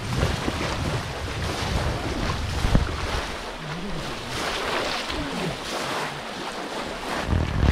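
Shallow muddy pond water sloshing and splashing as men wade and grope through it by hand, with wind rumbling on the microphone and a sharp thump a little under three seconds in.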